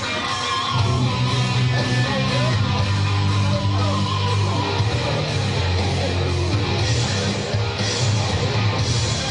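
Rock music with distorted electric guitar and a steady heavy bass line.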